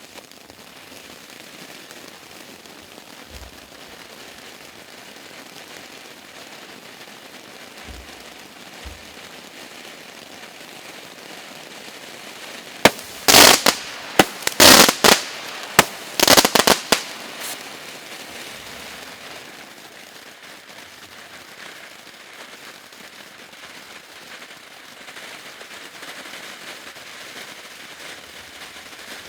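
Combination firework of a spark fountain and a 12-shot, 0.8-inch cake going off. The fountain hisses steadily, and about halfway a rapid run of sharp bangs from the shots lasts around four seconds before the hiss carries on alone.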